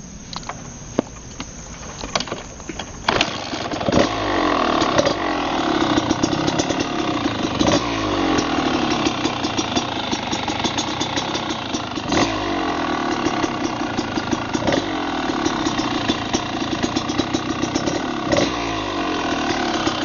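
Kawasaki KDX 220 single-cylinder two-stroke dirt bike engine catching about three seconds in, then running steadily at idle.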